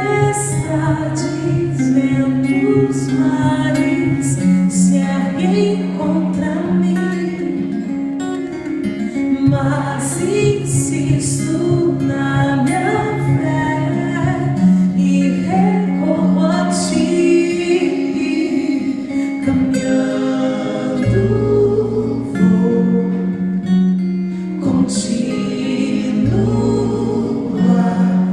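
Music with singing, a guitar and sustained vocal chords over a steady bass that changes every few seconds.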